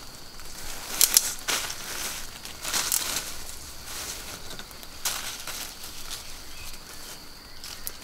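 Leafy hazel branches rustling and crackling as they are pulled and handled, with a pair of sharp cracks about a second in and further bursts of crackling around three and five seconds in.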